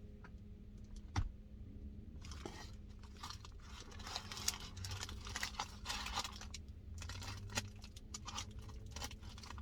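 A person chewing crunchy food close to the microphone, with a faint click about a second in and then a run of crackly crunches.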